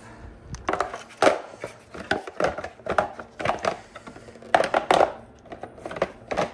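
Irregular knocks, clicks and clatter of a clothes dryer's panels and parts being handled and fitted back together during reassembly.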